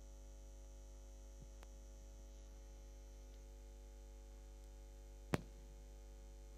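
Steady electrical mains hum, a low drone with a stack of fainter overtones, and a single sharp click about five seconds in.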